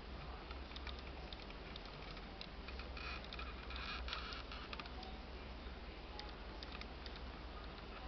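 Light clicks and scraping from a 1:24 scale model Ferrari Testarossa being rolled and turned by hand on a wooden floor, busier for about a second some three seconds in, over a low steady hum.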